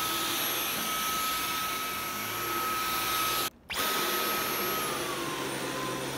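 Dyson V11 cordless stick vacuum running in auto mode with its repaired Torque Drive brush head on a rug: a steady suction rush with a steady whine over it. The sound drops out for a split second about three and a half seconds in, and the whine steps down a little in pitch about five seconds in.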